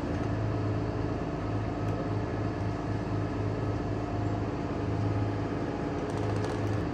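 A steady engine running with a low, even hum, most likely the bucket truck's engine powering the aerial lift.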